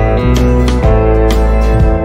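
Background music: sustained chords over a steady bass, changing about once a second.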